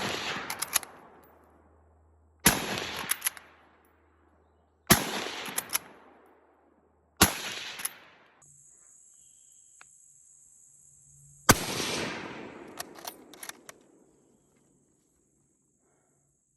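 Single rifle shots from a bolt-action 6.5x50mmSR Japanese service rifle: three shots a little over two seconds apart, then a longer pause and a fourth. Each shot is followed by a rolling echo.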